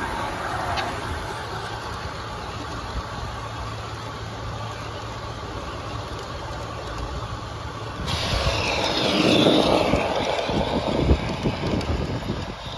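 Large-scale model freight train rolling past at close range: a steady rumble of wheels on the track, which grows louder about eight seconds in, with a run of quick clicks as the cars cross rail joints.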